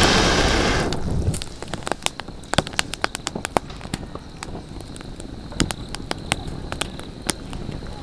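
Wood campfire crackling, with sharp pops scattered all through. A loud rushing noise fills the first second or so and fades out.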